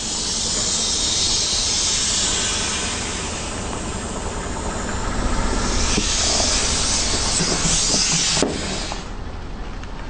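A car tyre rolling slowly over a row of air-filled plastic toys: a loud hissing rush that swells and fades, with a few small crackles of plastic giving way from about six seconds in. It drops off suddenly about eight and a half seconds in.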